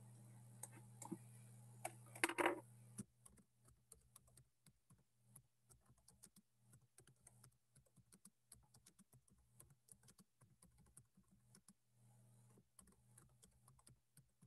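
Faint typing on a computer keyboard: quick, irregular key clicks starting about three seconds in. A low steady hum is heard at first and again near the end.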